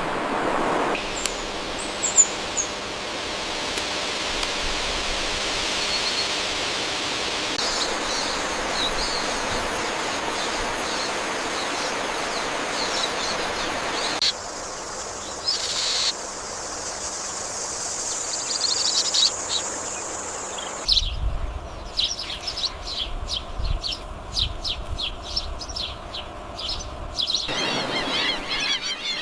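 Outdoor nature ambience with scattered bird calls and chirps over a steady background hiss. The sound changes abruptly several times, as between different recordings, and a low rumble with crackling runs through the later part.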